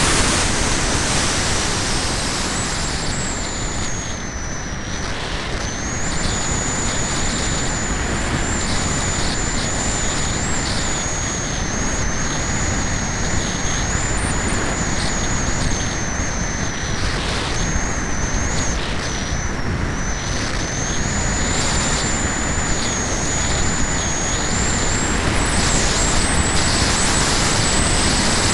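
Airflow rushing past the onboard keychain camera of a Cularis RC glider in flight, a steady, loud hiss of wind noise. A thin high whine comes in after a couple of seconds and wavers slightly up and down in pitch.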